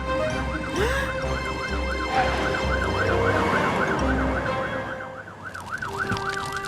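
Cartoon fire truck's siren, wailing rapidly up and down about three times a second, over a low rumble.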